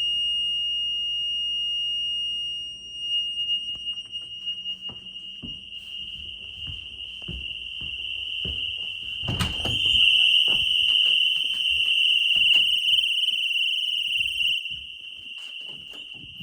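Home security alarm system sounding a police panic alarm: one continuous high-pitched tone, louder from about ten seconds in. Scattered knocks and thumps over it, the loudest about nine seconds in.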